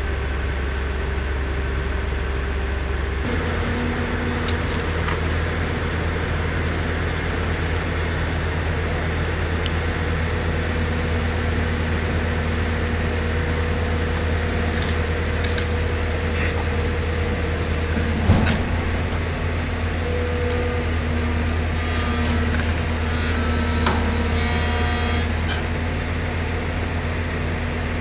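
Heavy diesel engine running steadily at a low drone, its note changing about three seconds in. A few sharp knocks break through, the loudest near the end.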